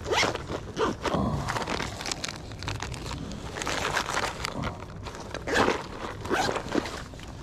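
Irregular rustling and crunching sounds, close by and uneven, over a low rumble.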